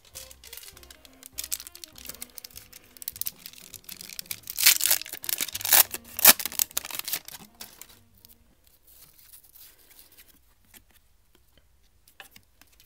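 The foil wrapper of a 1991 Upper Deck basketball card pack being torn open and crinkled by hand. It is loudest around the middle, then fades to a few light crackles and clicks.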